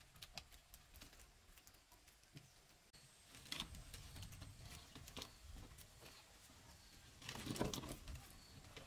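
Faint rustling and light clicking of longan bunches being handled and tied: dry stems and the small round fruits knocking together, with a louder rustle about three-quarters of the way through.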